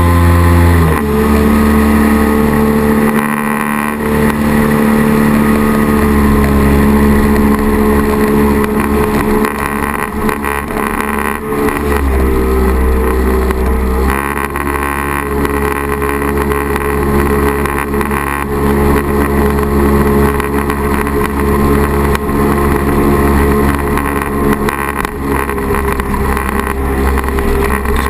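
Firefish jet boat's engine running steadily while under way. The engine note shifts a few times: about a second in, around twelve seconds and again around fourteen seconds.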